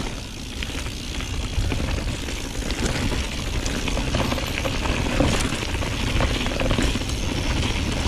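Mountain bike riding over a rough trail: tyres rolling on dirt and stones, with frequent clicks and rattles from the bike over a continuous low rumble of wind buffeting the microphone.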